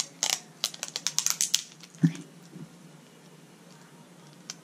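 Sticky tape crackling in a quick run of sharp rips as it is pulled and wrapped around a stick of chalk, then a dull thump about two seconds in and a single click near the end.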